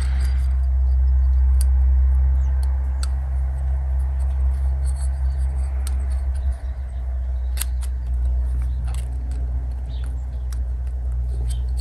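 A steady low rumble, with scattered faint clicks and ticks as a piston ring is spread by hand and worked into its groove on a 250cc ATV piston.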